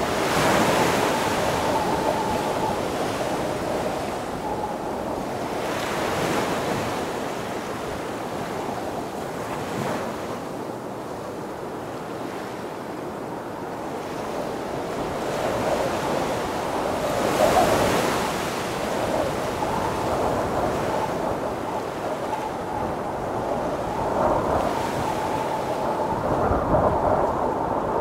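Tropical windstorm: strong wind rushing through palm fronds, with surf washing on the shore. The wind comes in gusts that swell and ease several times, strongest about two-thirds through and again near the end, buffeting the microphone.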